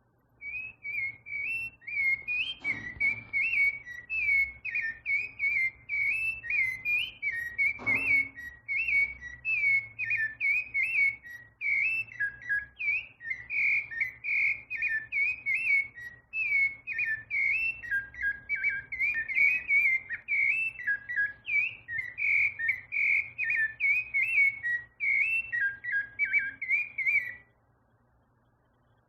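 A songbird singing one long, unbroken song of quick whistled notes that jump up and down in pitch, several notes a second. The song stops abruptly near the end.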